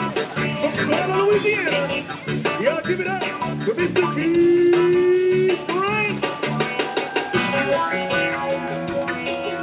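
Zydeco band playing live through a stage PA: electric guitar and drums keep a steady beat, with a long held note from about four to five and a half seconds in.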